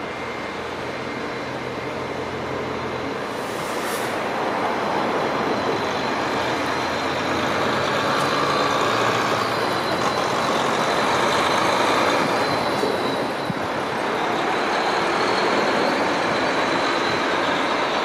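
Siemens Charger diesel-electric locomotive of an Amtrak Pacific Surfliner running close by, its engine sound growing steadily louder. A brief hiss comes about four seconds in.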